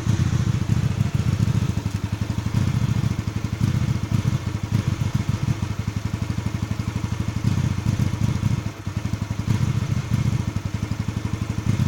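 Hyosung GV250's V-twin engine idling roughly: the firing pulses are uneven and the loudness keeps surging and sagging, with a brief dip about nine seconds in.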